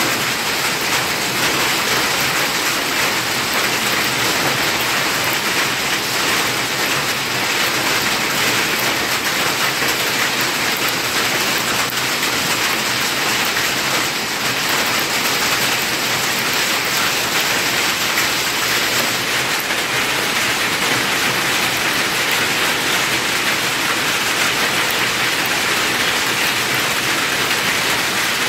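Nickel- to quarter-sized hailstones pelting wet pavement in a dense, steady clatter of countless small impacts.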